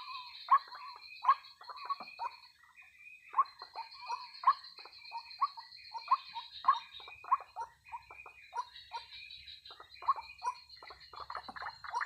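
White-breasted waterhen (ruak-ruak) calling: a rhythmic series of short repeated notes, about two a second, with a brief pause a little after two seconds in.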